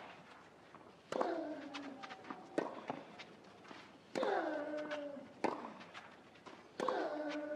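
Tennis rally: a ball struck back and forth five times, about every one and a half seconds. Every other stroke comes with a player's loud grunt that falls in pitch.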